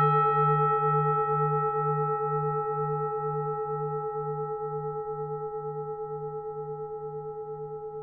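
Temple bell ringing on after a single strike, its low hum wavering about two or three times a second under higher steady tones, slowly dying away.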